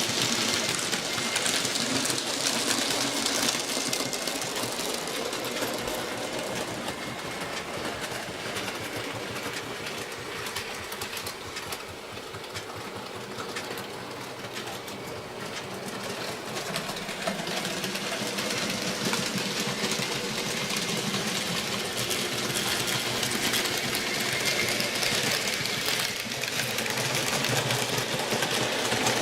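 N scale model train running along the layout track: the small electric motor whirs steadily and the wheels tick over the rail joints. It fades somewhat in the middle, then grows louder again toward the end.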